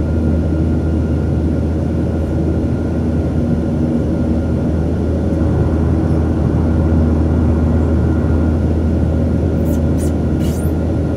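Steady drone of a Boeing 737's jet engines heard inside the passenger cabin during the climb after takeoff: a strong low hum with a few steady tones riding on top. A few brief clicks near the end.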